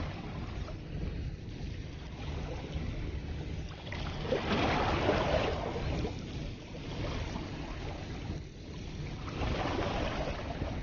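Sea waves washing against the shore, swelling louder twice, over a steady low rumble of wind on the microphone.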